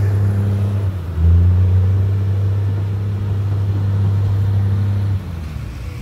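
Motor grader's diesel engine running at work, a steady low drone that gets louder about a second in and eases off near the end.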